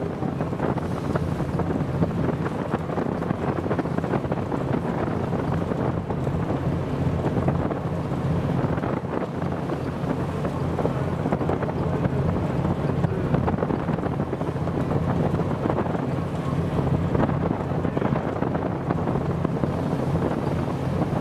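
Steady wind rushing and buffeting on the microphone, over the wash of a choppy sea.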